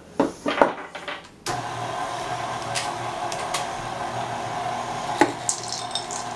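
A few knocks and clicks of a spatula against a stainless steel mixing bowl, then, about a second and a half in, a KitchenAid Artisan stand mixer is switched on and runs with a steady hum, its flex-edge beater working thick chocolate chip cookie dough. A single knock about five seconds in.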